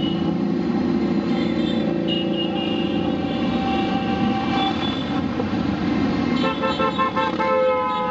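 A procession of motorcycles riding past, engines running steadily, with horns tooting, several short honks in quick succession near the end.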